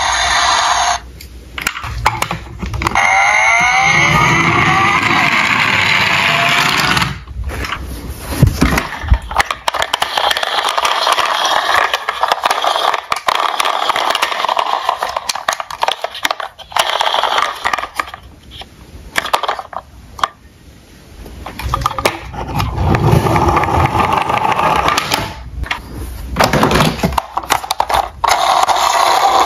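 Electronic engine sound effects from battery-powered toy police cars, played through their small speakers: a revving engine with rising pitch sweeps, cutting out and starting again several times.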